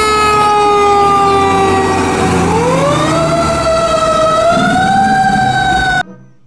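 Fire truck siren wailing, its pitch sagging slowly for about two and a half seconds and then climbing again, over the low rumble of the truck's engine. It cuts off suddenly about six seconds in.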